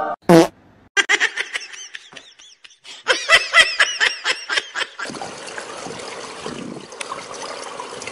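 A person laughing in quick, high-pitched bursts for several seconds, then a steady noisy background.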